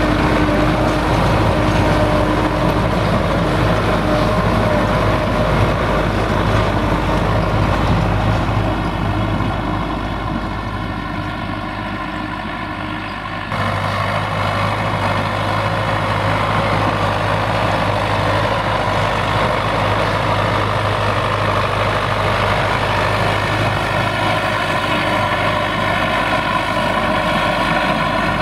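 Belarus MTZ-82 tractor's four-cylinder diesel engine running steadily under load while pulling a plough. It fades somewhat partway through, then comes back to full level abruptly about halfway.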